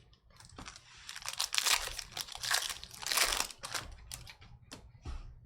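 Trading-card pack wrappers crinkling and tearing as packs are ripped open, in two louder rustling bursts, with a few sharp clicks from cards being handled.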